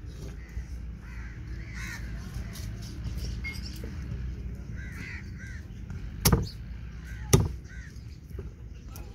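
Two heavy cleaver chops about a second apart, a steel cleaver striking through a singhara fish into a wooden log chopping block. Crows caw repeatedly in the background.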